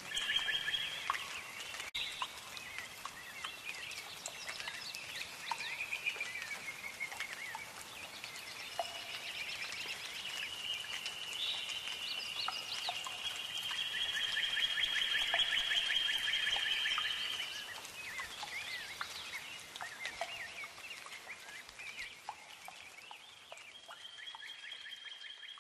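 A chorus of many birds chirping and calling, quick overlapping chirps with a few longer held calls, swelling in the middle and dying down near the end.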